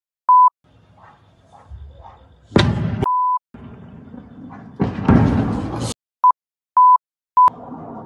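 Five short steady 1 kHz censor bleeps over a phone recording, masking swear words, with the original sound cut out under each. Between them come two loud rushing bursts, about two and a half and five seconds in.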